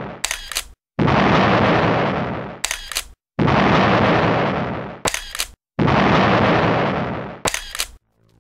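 Intro sound effect repeating about every two and a half seconds: a heavy boom that fades away, followed by a quick burst of sharp metallic clicks, three times over.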